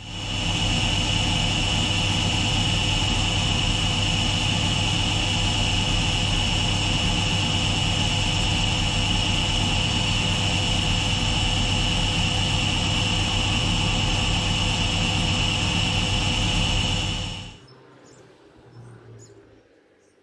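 Milling machine spindle running steadily with a high-pitched whine and a low hum while drilling a tapping hole in an aluminium piston. It starts up at once and shuts off a few seconds before the end.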